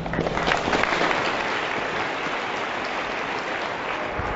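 Audience applauding, dense clapping that swells about half a second in and then holds steady.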